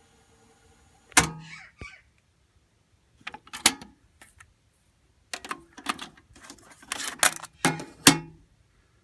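Sharp plastic and mechanical clicks and knocks from the Technics RS-TR232 cassette deck's open tape door and compartment being handled: one about a second in, a few around three and a half seconds, and a busier run of clicks from about five and a half to eight seconds.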